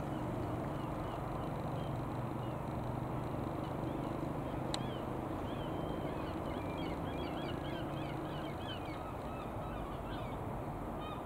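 Guimbal Cabri G2 helicopter passing overhead, its four-cylinder piston engine and rotor giving a steady low drone that fades after about eight seconds. Birds chirp in quick short calls over it.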